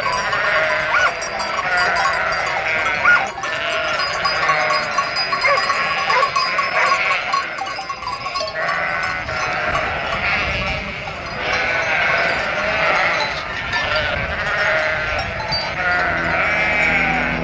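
A flock of sheep bleating, many calls overlapping without a break. A low steady hum comes in near the end.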